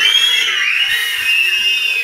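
Many people whistling at once as loud as they can: a mass of overlapping rising and falling whistles that starts suddenly on a count of three.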